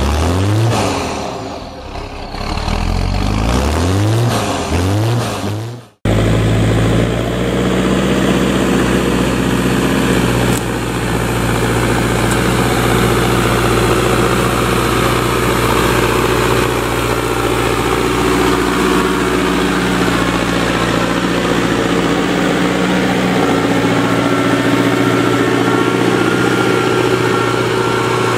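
For the first six seconds, an engine revs in repeated rising sweeps and then cuts off abruptly. After that, a Same Explorer 90 tractor's diesel engine runs steadily under load, pulling a five-shank Alpego KD 5 subsoiler through the ground.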